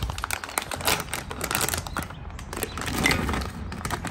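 Plastic pouch crinkling and crackling as it is pulled open and handled, with dried fish shifting inside; many small crackles close together.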